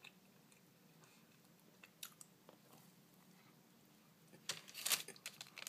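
A person chewing a mouthful of soft berry-and-cream pastry, faint at first, with a few louder wet mouth clicks near the end.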